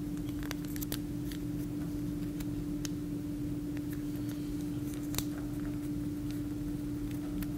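A square of origami paper being folded and creased by hand: scattered soft crackles and clicks of the paper, over a steady low hum.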